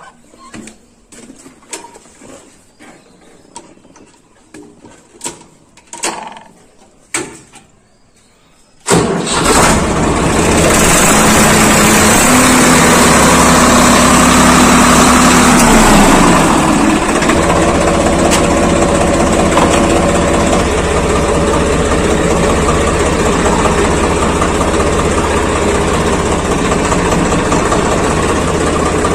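A few faint clicks and knocks, then about nine seconds in a Swaraj 855 FE tractor's three-cylinder diesel engine starts with a sudden loud onset. It runs at raised speed for several seconds, then drops back to a steady idle.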